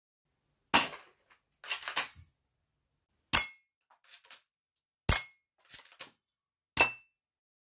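Low-power airsoft pistol (under 0.5 joule) shooting 6 mm BBs at an empty glass bottle: four sharp cracks about every one and a half to two seconds. Each crack is followed by a few fainter clicks and clinks of the BB striking the glass and rattling around the cardboard box, and the later shots leave a brief glassy ring.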